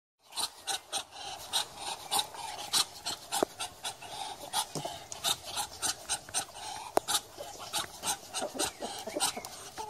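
Muscovy ducks hissing: a quick run of short, breathy huffs, about three or four a second, with a couple of sharp clicks among them.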